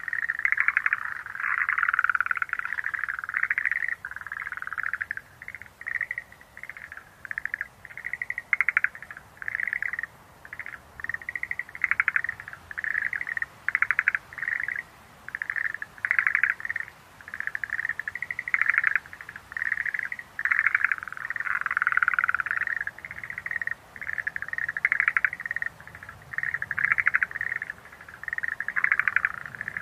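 Schlegel's green tree frogs calling: short pulsed calls repeating about once a second, with several frogs overlapping about two seconds in and again around twenty-two seconds in.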